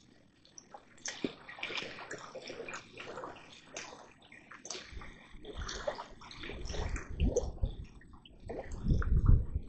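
Water splashing and sloshing in irregular bursts. From about halfway through, low rumbling thumps build up and grow louder near the end.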